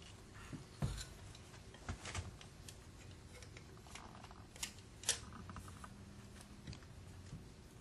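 Faint, scattered metallic clicks and small knocks from an electric motor being put back together by hand: the end bell, the long through-bolts and the steel case tapping against each other, with the sharpest clicks about five seconds in.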